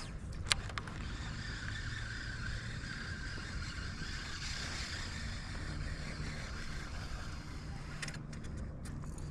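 Kayak under way across the water: a steady low rumble with a hiss of water, and one short click about half a second in.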